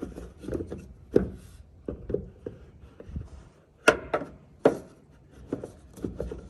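Valve being worked onto the outlet fitting of an IBC water tote: a run of uneven clicks, knocks and scrapes, with the two loudest knocks about four and four and a half seconds in.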